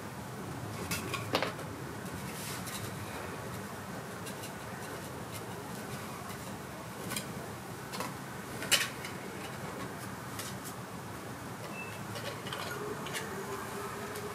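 Playing cards being handled and set onto a house of cards: scattered light clicks and taps, the sharpest one a little under nine seconds in, over a steady low room hum.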